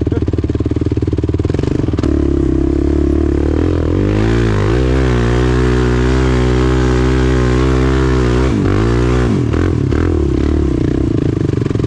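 Sport quad (ATV) engine heard close up from its handlebars while riding through sand. The revs rise about four seconds in, hold high for about four seconds, then drop away near nine seconds before picking up again.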